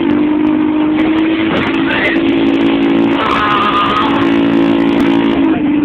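Piaggio Liberty 50 scooter engine running steadily under way, loud through its burst exhaust.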